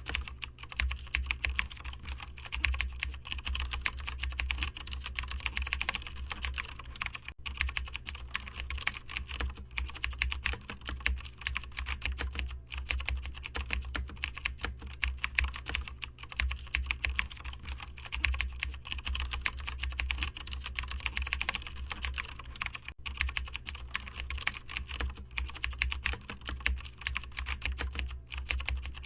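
Continuous fast typing on a computer keyboard: a dense run of soft keystroke clicks with a few brief pauses, over a steady low hum.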